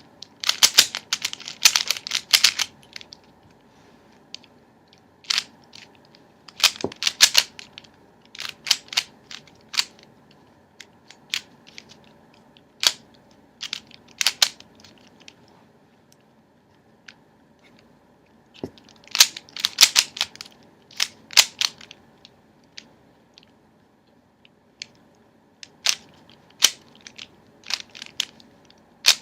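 Plastic speed cube being turned fast by hand: flurries of quick clicking and clacking as its loose layers snap round, broken by pauses of a few seconds.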